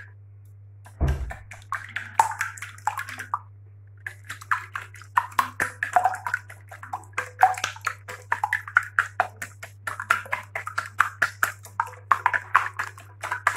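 Wire whisk beating a runny egg-and-milk batter in a bowl: quick clicking and sloshing strokes, several a second, as the wires hit the bowl. The strokes begin after a low thump about a second in and break off briefly around the fourth second. A steady low hum runs underneath.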